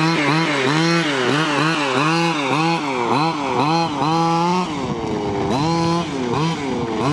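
HPI Baja 5SC 1/5-scale RC truck's small two-stroke petrol engine revving as it is driven, its pitch rising and falling over and over in quick bursts of throttle, with a few brief steady stretches at high revs.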